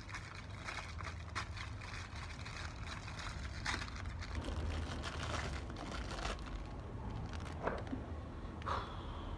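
Rustling and scattered light clicks of ring-light parts and packaging being handled during assembly, with a few sharper clicks near the end.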